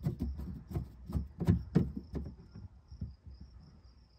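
Screwdriver backing a Torx screw out of a plastic trim panel: a run of irregular sharp clicks for the first two seconds or so, then quieter. A faint steady high-pitched tone runs behind it.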